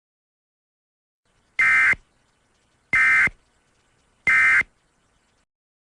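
Emergency Alert System end-of-message signal: three short bursts of two-tone SAME data, each about a third of a second long, about a second apart, marking the close of the alert.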